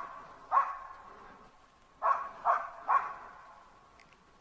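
Hunting laika barking: a single bark, then three quick barks about two seconds in.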